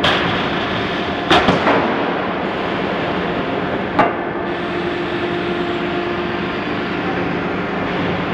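Cut-to-length line for heavy steel plate running with a steady machine hum, broken by sharp metal clanks of steel plate: one at the start, a quick run of three about a second and a half in, and one more about four seconds in.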